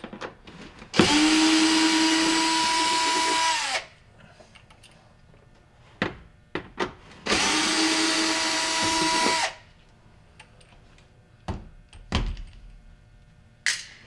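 Power drill-driver backing out two quarter-inch screws from a dishwasher's sump cover: two steady whirring runs of about three and two seconds, each winding down as it stops, with a few clicks and knocks of handling between and after them.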